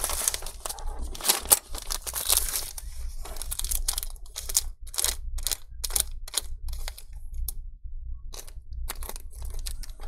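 Small clicks and rustling from hands working inside an opened MacBook Air A1466, fitting the SSD and its screw. A dense crinkly rustle fills the first few seconds, then a run of separate sharp clicks follows.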